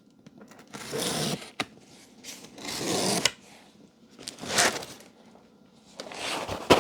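Cardboard shipping box being opened by hand: four separate bursts of scraping and rustling of cardboard and packing tape, with a sharp knock near the end.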